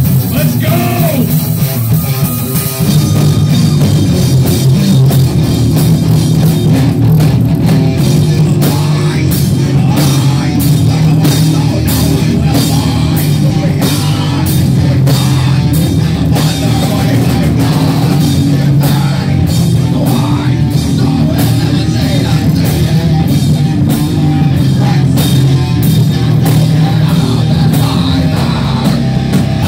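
Heavy metal band playing live: electric guitars and drum kit, with the full band coming in loud about three seconds in and driving on with steady cymbal hits.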